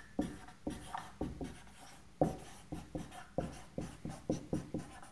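Dry-erase marker writing on a whiteboard: an irregular run of short, quick strokes and taps as words and a small diagram are drawn.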